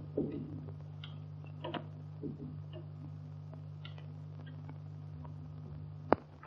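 Faint clicks and knocks of a door being shut and secured, over the steady hum of an early sound-film track, with one sharp click near the end.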